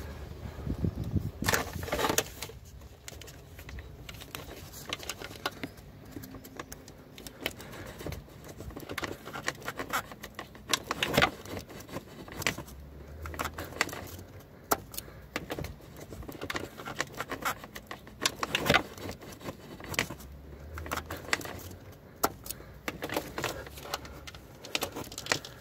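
Irregular clicks and rattles of hands working the plastic electrical plug off an Audi A4 1.8's coolant temperature sensor, with a few louder clacks scattered through and a couple of brief low rumbles.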